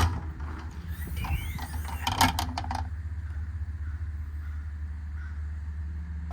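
Service-body compartment door and latch being worked: a sharp click, then a cluster of latch clicks and knocks with a brief squeak, over a steady low hum.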